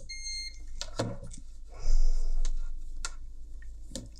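Digital multimeter's continuity beeper giving one short high beep as the test probes bridge a connected path on the headphone circuit board, followed by light clicks of the probe tips on the board. A short, louder rush of noise comes about two seconds in.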